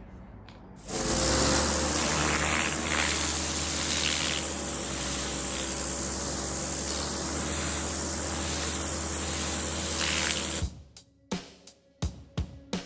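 Kärcher K4 electric pressure washer running with a turbo nozzle, blasting water onto patio tiles: a steady hiss of spray over the machine's pump hum. It starts about a second in and cuts off suddenly near the end, followed by a few sharp clicks.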